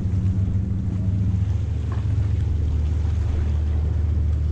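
Motorboat engine running with a steady low hum that shifts slightly lower in pitch about a second and a half in.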